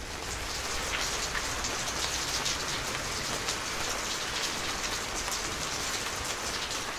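Rain sound effect: a steady hiss of falling rain with many fine drop ticks, swelling in over the first second and then holding steady.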